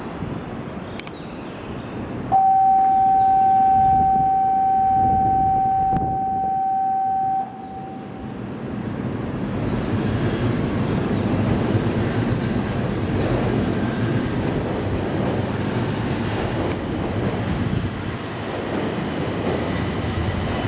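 A loud steady single-pitch tone sounds for about five seconds. Then an E2 series Shinkansen pulls out of the platform, its running noise building gradually and holding steady.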